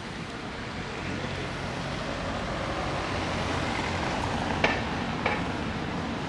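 Town-centre street ambience: a steady wash of distant traffic and passers-by, with two sharp knocks about two-thirds of a second apart a little past the middle.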